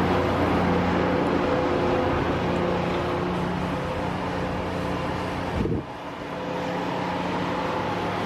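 Car engine and road noise, a steady drone with a constant low hum, dipping briefly about six seconds in.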